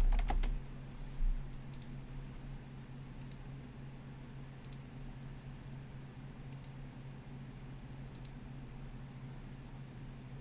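Clicking at a computer: a few quick clicks in the first second, then single light clicks about every second and a half, over a steady low electrical hum.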